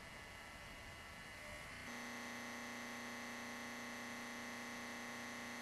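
Faint hiss, then about two seconds in a steady electrical buzz cuts in abruptly and holds unchanged.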